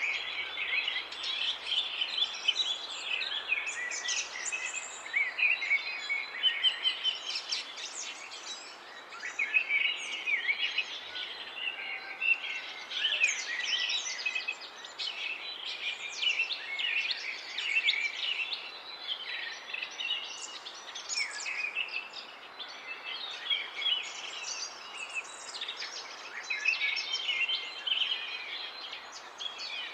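Many small birds chirping and singing at once, a dense chorus of short high calls and trills that never lets up, over a steady background hiss.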